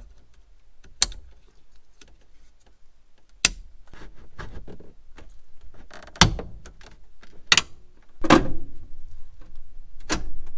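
About half a dozen sharp clicks and knocks of parts being fitted into a pickup's plastic dashboard: the radio slid and seated into its slot, with handling rustle between.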